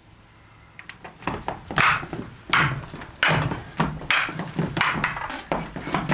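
Wooden practice staffs striking each other in stage-combat sparring: a string of sharp wooden clacks, more than one a second, starting about a second in.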